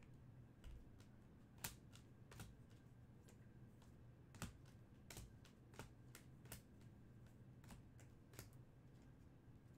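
Faint, irregular clicks and taps of glossy Topps Stadium Club Chrome soccer cards being handled and flipped through one by one, about a dozen over the stretch, over a low steady room hum.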